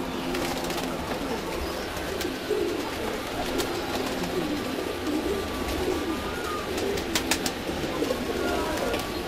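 Domestic pigeons cooing repeatedly, with a few sharp clicks about seven seconds in.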